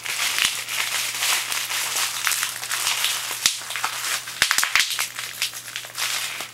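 Plastic toy packaging crinkling and crackling with many sharp clicks as an action figure package is torn open by hand.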